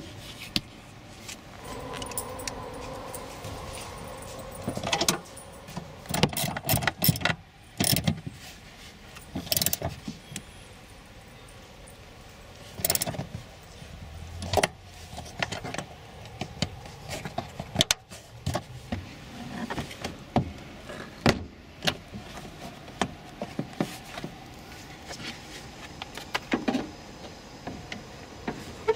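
Irregular clicks, knocks and rattles of hands and tools working on a Scion tC's plastic interior trim panels, with a socket ratchet turned on a trim bolt.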